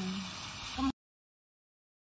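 Steady background hiss with a brief bit of voice, cut off abruptly just under a second in; the rest is dead digital silence from an edit gap in the soundtrack.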